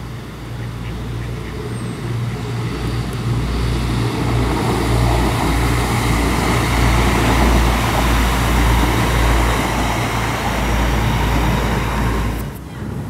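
A DB class 622 Alstom Coradia LINT diesel multiple unit passing by: its engine drone and running noise build over the first few seconds, are loudest in the middle, and ease off. The sound drops away abruptly near the end.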